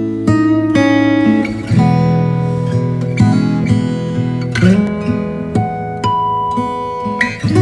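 Background music on acoustic guitar, plucked and strummed, the chord changing every second or so.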